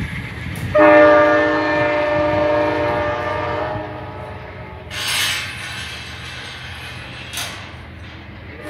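A train horn sounds one long, steady chord of about three seconds, starting suddenly about a second in, over the low rumble of a passenger train rolling away. Two short bursts of hiss follow later.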